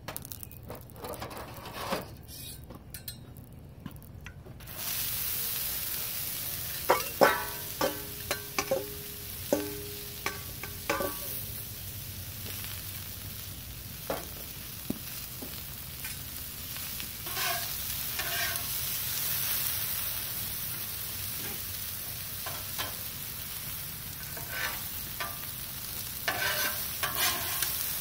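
Sliced onions and bell peppers land on a hot, oiled Blackstone flat-top griddle about five seconds in and start sizzling steadily. Metal spatulas clack and scrape on the steel griddle top as the vegetables are turned, in a cluster of sharp, ringing strikes a few seconds after the food goes down and again later.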